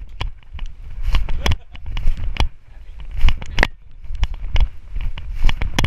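Handling noise from a camera strapped to a dog as it moves about: irregular knocks and clicks over a low rubbing rumble.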